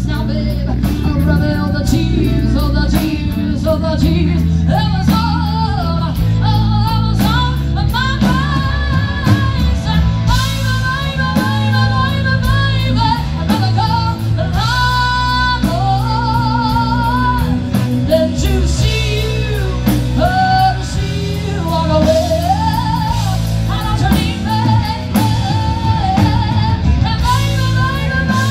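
Live rock band playing a song: a singer's voice over guitar and drums.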